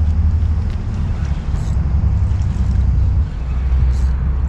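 Low, uneven rumble of wind buffeting the camera microphone.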